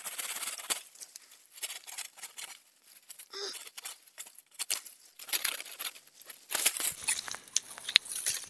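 Thin sapling stems being cut with a hand blade: irregular sharp cracks and snaps of green wood over dry leaves and twigs rustling.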